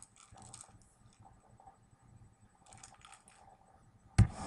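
A plastic treat-dispensing ball with dry kibble inside, rattling in short bursts as cats push it across carpet, then one sharp knock a little before the end.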